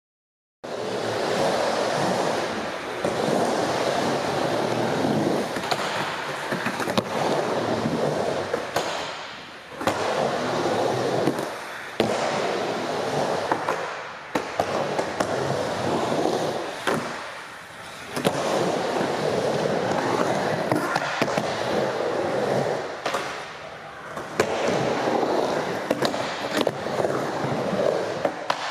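Skateboard wheels rolling and carving on a concrete bowl, with sharp clacks and knocks of the board and trucks. The rolling dips and returns several times.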